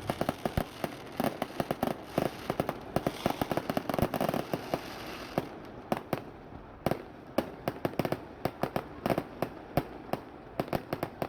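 Fireworks display going off in rapid succession, many bangs and pops a second. About five and a half seconds in, the dense barrage thins to more spaced, separate bangs.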